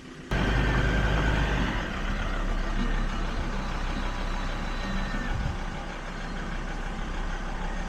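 A motor vehicle running, heard from on board or close by: a steady low rumble with road and wind noise that cuts in suddenly just after the start and holds throughout.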